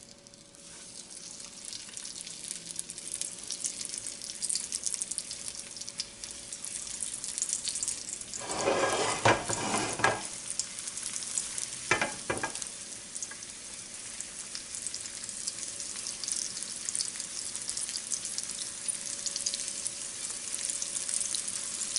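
Chicken dumplings shallow-frying in a thin layer of hot oil in a pan: a steady crackling sizzle that builds over the first couple of seconds. It flares louder twice, about nine seconds in and again around twelve seconds in, as more dumplings are laid into the oil.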